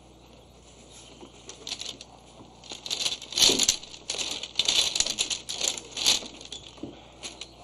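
Kyudo arrows being picked up off a mat: a few seconds of irregular rustling and light clattering of the shafts, with cloth rustling as the kneeling archer reaches for them, starting about a second and a half in and stopping near the end.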